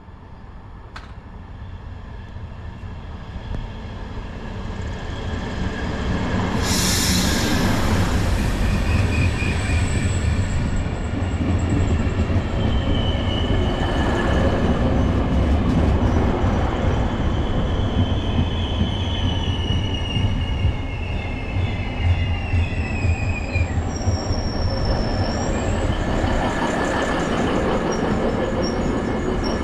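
A train approaching and passing close by, getting louder over the first six seconds and then holding a steady low rumble. A short hiss-like burst comes about seven seconds in, and from about twelve seconds on the wheels squeal on the rails in high, wavering tones.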